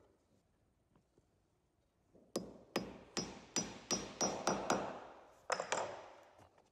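Hammer tapping glued wooden plugs into the screw holes of a wooden stair tread: a quick run of about ten taps starting a little over two seconds in, then two more after a short pause, each with a light metallic ring.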